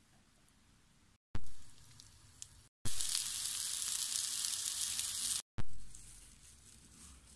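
Köfte meatballs sizzling as they fry in a pan, a steady hiss for a few seconds that starts and stops abruptly. Before and after it, two short stretches each open with a sudden thump that dies away.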